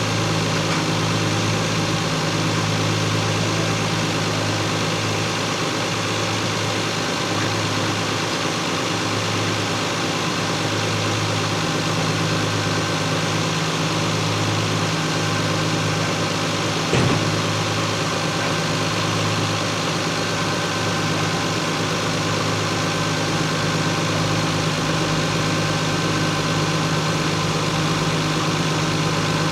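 Stock Lexus GS300's 2JZ inline-six idling steadily, with one brief tap a little past halfway.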